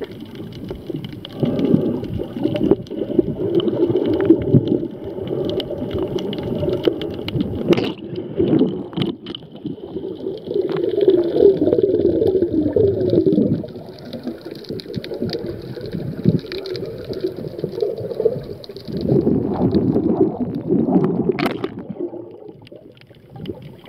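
Muffled underwater water noise heard through a submerged camera: churning, gurgling water and bubbles moving around the camera, with scattered sharp clicks.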